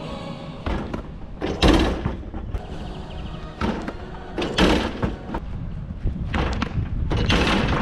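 Three heavy slams about three seconds apart, a basketball hoop's rim and backboard being hit in dunks, over background music.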